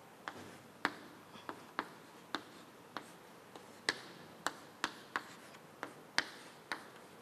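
Chalk writing on a chalkboard: a string of short, sharp taps and clicks at uneven intervals, about two a second, as the chalk strikes and lifts from the board.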